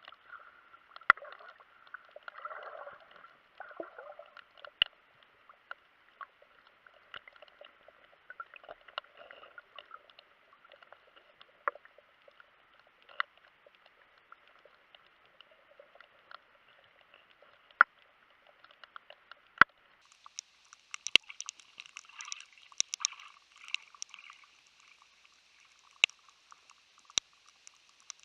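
Underwater sound: a faint, muffled hiss with scattered sharp clicks and crackles at irregular moments. About twenty seconds in, the hiss turns higher and brighter and the clicks come thicker.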